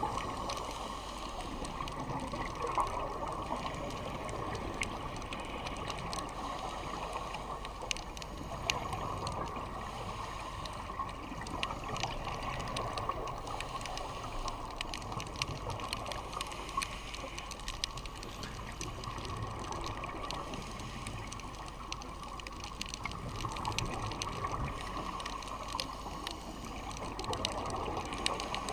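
Underwater sound through a dive camera's housing: a steady, muffled water rush with many scattered faint clicks.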